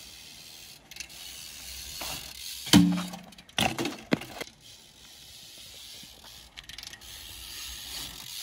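BMX bike being ridden: the rear hub's ratchet clicking, with several sharp knocks of the bike hitting and landing. The loudest knock comes about three seconds in and rings briefly.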